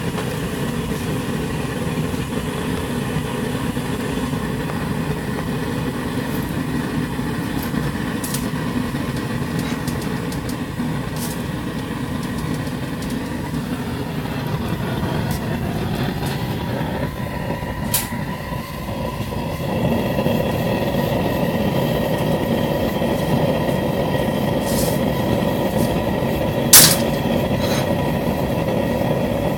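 Homemade propane forge burner running with a steady rushing flame noise. About two-thirds of the way through it gets a little louder and takes on a steady hum, and a single sharp click sounds near the end.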